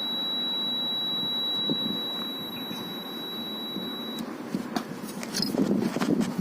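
A clamp meter's continuity buzzer sounding one steady high beep, held for about four seconds and then cutting off sharply, over a low background hum.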